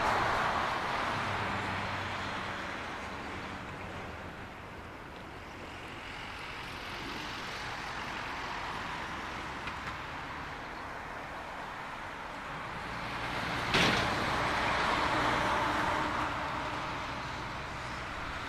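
Jet airliner engines, a broad roar that is loudest at first and fades over several seconds, then swells again from about twelve seconds in before easing off. A single sharp knock comes about fourteen seconds in.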